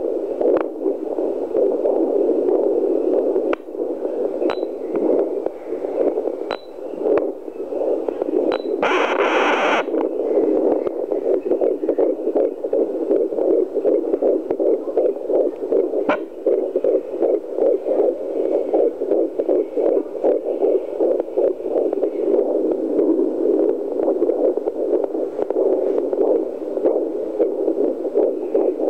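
Fetal doppler's loudspeaker giving a steady, muffled whooshing hiss with a fast pulsing texture as the probe searches for a 13-week fetal heartbeat. A few sharp clicks come through, and a brief harsher scratching burst about nine seconds in.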